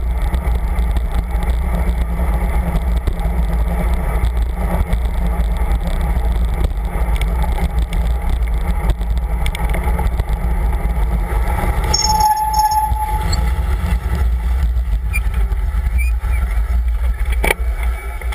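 Wind buffeting the microphone of a camera on a moving bicycle, with road traffic noise under it. A brief high tone sounds about two-thirds of the way through, and the noise eases off near the end as the bicycle slows at the crossing.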